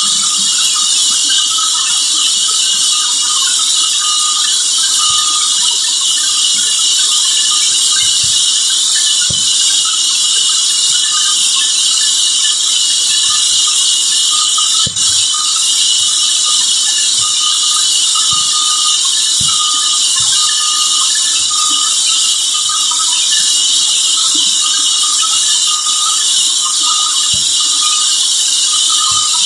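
Sawmill saw cutting through a large teak log: a steady, loud hiss of the blade in the wood, with a squeal that comes and goes and a few scattered low knocks.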